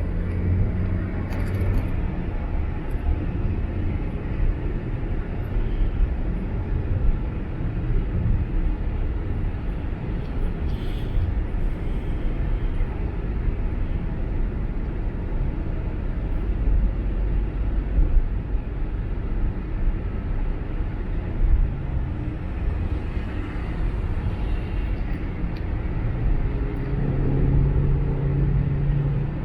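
Steady road and engine noise of a car driving at highway speed, a constant low rumble; near the end a steady low hum rises over it for a couple of seconds.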